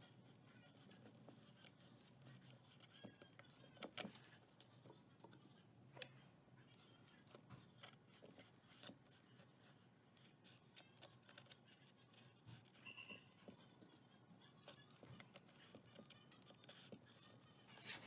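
Faint, irregular small clicks and scrapes of hands working craft materials, with a couple of sharper ticks about 4 and 6 seconds in.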